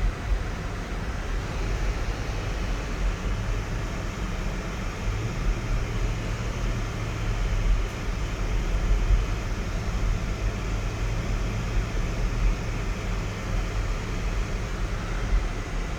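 Cabin noise inside a 2004 Lexus GX 470 under way: steady low rumble of the 4.7-litre V8 and of tyres on the road, with a steady hum joining in about a third of the way through.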